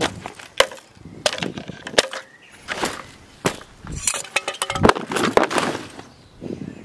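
Hard objects knocking and clinking together in an irregular string of sharp clatters, some ringing briefly, as of gear being handled.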